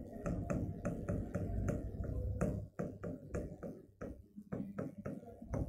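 Marker pen writing on a whiteboard: a quick, irregular run of light ticks and taps as the tip strokes and lifts, over a low steady room rumble.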